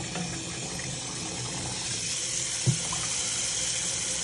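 Hot water running from a kitchen faucet into a stainless steel sink of turnip greens as they are washed by hand. There is a brief thump about two and a half seconds in.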